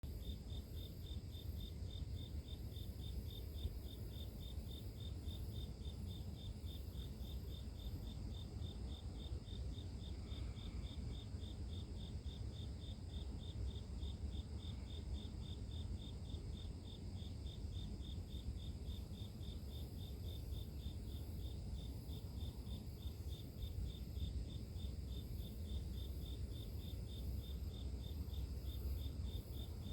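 Grass insects chirping at night: one insect's chirp pulses evenly about three times a second over a continuous high trilling from others, with a low steady rumble underneath.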